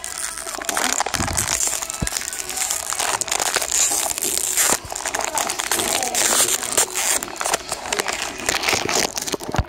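Dense rustling and crackling handling noise from fingers rubbing over a phone's microphone while the phone is covered, with many small clicks throughout.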